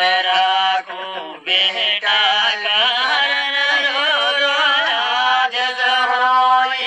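A man chanting a Gojri kalam in long held notes with wavering, ornamented turns. The voice drops briefly about a second in.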